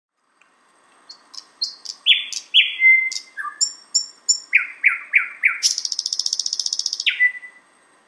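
Thrush nightingale singing one song phrase: loud, sharp notes repeated in twos, threes and fours, then a fast rattle lasting over a second, ending on a single short note near the end.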